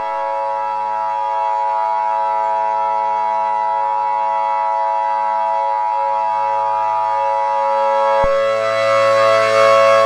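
Steady, siren-like electronic drone: a chord of held tones that neither rises nor falls, used as an emergency alert background. One of the upper tones cuts off with a click a little after eight seconds, and the drone grows louder near the end.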